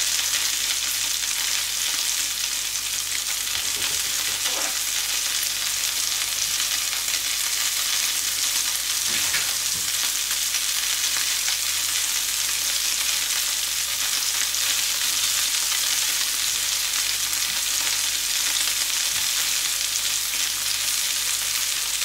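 Beef burger patty frying in a pan, sizzling with a steady, even hiss.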